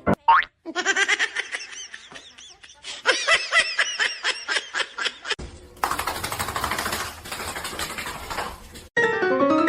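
A person laughing in quick repeated bursts for several seconds, followed by a stretch of steady hiss-like noise; piano music comes in near the end.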